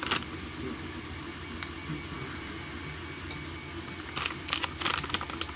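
Faint steady low hum with a couple of soft ticks. From about four seconds in comes a quick run of crinkling and clicking as an anti-static bag holding a circuit board is handled and opened.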